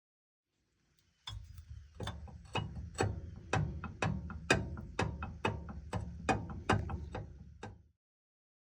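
Music with a steady drum beat, about two beats a second over a low bass, starting about a second in and stopping shortly before the end.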